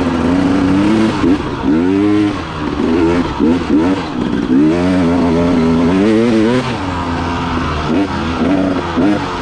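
KTM dirt bike engine being ridden on rough trail, the throttle opened and closed again and again so the revs rise and fall every second or so.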